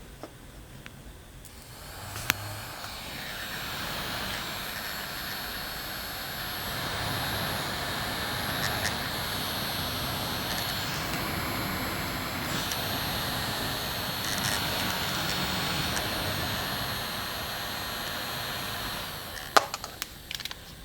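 Miniature portable air conditioner's fan running: a steady rush of air with a thin high whine. It is switched on with a click about two seconds in and spins up over a couple of seconds, then is switched off with a few clicks near the end.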